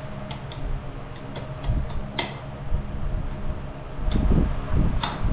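Irregular light metal clicks and clinks of hand tools on a bolt, nut and washers as a rivet nut is set by hand in a steel part held in a vise, with a sharper click about two seconds in. A faint steady hum runs underneath.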